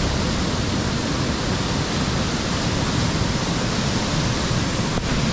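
Waterfall rushing steadily close by, an even, loud hiss of falling water.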